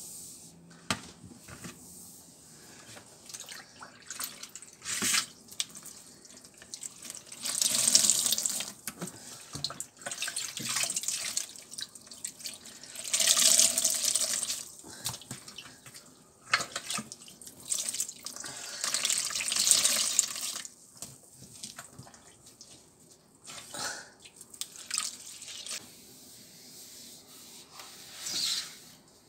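Water splashing and trickling in several bursts of a second or two, with scattered clicks and knocks of handling: standing water being cleared out of the sump of a Bosch dishwasher that is not draining.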